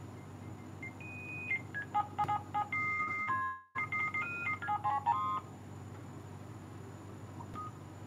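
Keypad beeps from a Sagem my100X mobile phone's bare circuit board as its buttons are pressed: a quick run of short electronic tones at shifting pitches between about one and five seconds in, over a steady low hum.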